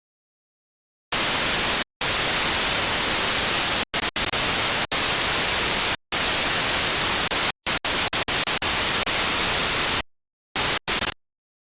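Loud static hiss that starts abruptly about a second in and is cut by a series of sudden brief dropouts, some very short and some about half a second long, before it stops near the end.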